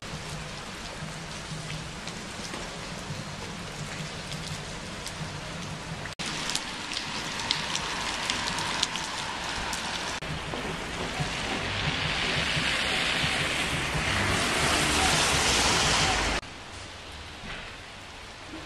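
Steady rain falling on wet pavement and a river. Close, separate drops tick in the middle, then the rain hiss swells louder before dropping abruptly to a softer hiss near the end.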